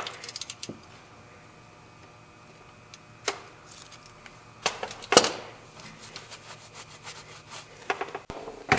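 Scattered sharp metallic clicks and clinks of hand tools being handled during an oil change, with one louder clank about five seconds in and a run of light ticks after it.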